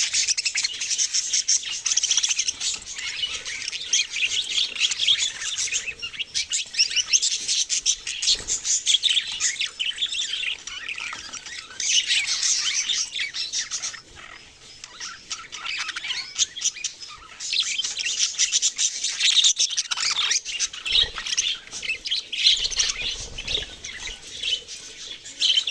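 A flock of budgerigars chirping, many rapid high chirps overlapping, with a brief lull about halfway through.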